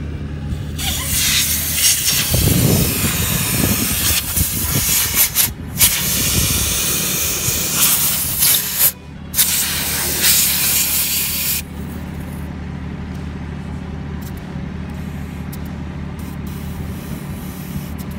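Air hissing at a car tyre's valve as the tyre pressure is adjusted. The hiss is loud and steady, breaks off briefly twice, and stops abruptly about two-thirds of the way through. A steady low hum runs underneath.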